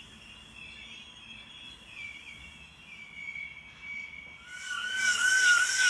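Faint outdoor background with thin, wavering high tones, then about four and a half seconds in a loud, high-pitched, wavering squeal with a hiss comes in suddenly: freight train wheels squealing against the rail on a curve.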